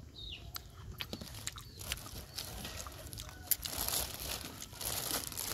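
Clear plastic food bag crinkling and rustling as it is handled, with scattered crackling clicks that get denser in the second half.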